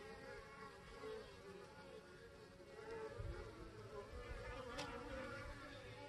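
Honey bees buzzing at a hive entrance: a faint, wavering hum of many bees flying in and out, with a low rumble joining about halfway through.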